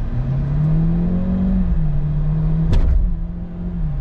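Chevy Cruze's 1.4-litre turbocharged four-cylinder engine pulling hard from a stop, heard from inside the cabin, driven to show its bad turbo lag. The engine note rises over the first second and a half, dips briefly, holds, then falls near the end, with one short sharp click about two-thirds through.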